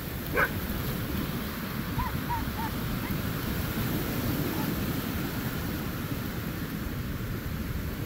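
A dog barks once about half a second in, then gives three short, fainter yips about two seconds in, over the steady wash of surf and wind.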